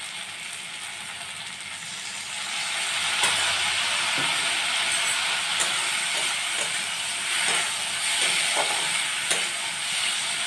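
Chopped onion and capsicum sizzling in oil in a steel kadai while a metal spatula stirs and scrapes them, with scattered clinks of the spatula against the pan. The sizzle grows louder about two and a half seconds in as the stirring gets going.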